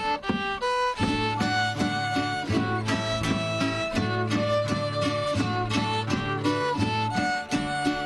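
Live Andean folk dance music: a violin plays the melody, and about a second in a fuller accompaniment of plucked strings and a beaten drum joins it in a steady rhythm.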